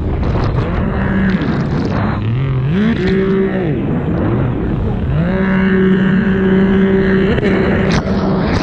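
A 2021 Sea-Doo RXP-X's supercharged three-cylinder engine revving as the rider works the throttle through a buoy turn: the note climbs, falls away briefly, then climbs again and holds high. Behind it is the rush of water spray and wind on the mic.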